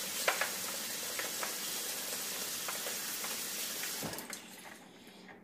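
Tap water running into a plastic basin of ice cubes in a steel sink: a steady splashing hiss with a few light clicks. It stops about four seconds in.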